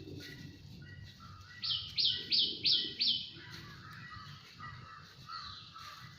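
Birds calling: one gives a run of five quick, high, falling notes about a second and a half in, over continual softer chirping from other birds.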